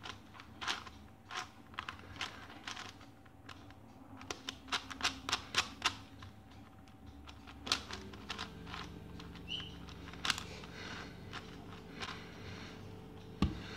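ShengShou Gigaminx puzzle being turned by hand: irregular plastic clicks and clacks as its layers are twisted, coming quickest about four to six seconds in and sparser after.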